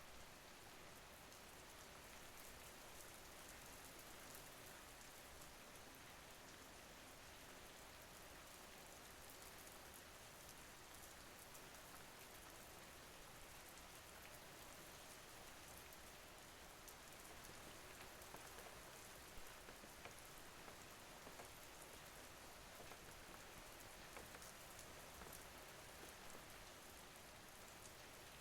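Faint, steady rain falling: an even hiss with scattered small drop taps.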